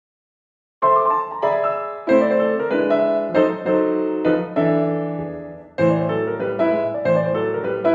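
Background piano music starting about a second in: a slow run of struck notes and chords that ring and fade.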